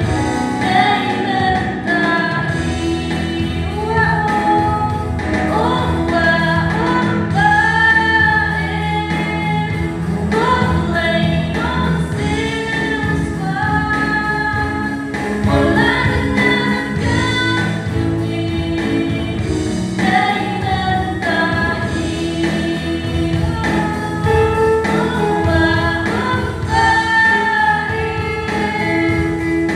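A choir of women and men singing a gospel hymn over steady instrumental accompaniment.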